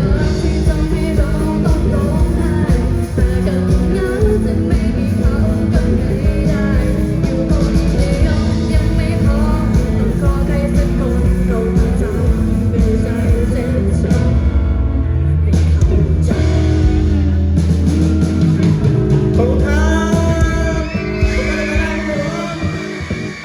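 Live rock band with a singer, loud and amplified, with heavy bass. Near the end the band drops away and the level falls.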